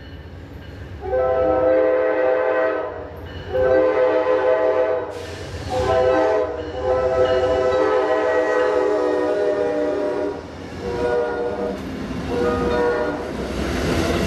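Amtrak P42 diesel locomotive sounding its multi-note horn in a series of blasts, long ones of one to three seconds broken by a few shorter ones, as the train passes close by. The rolling noise of the passenger cars on the rails rises near the end.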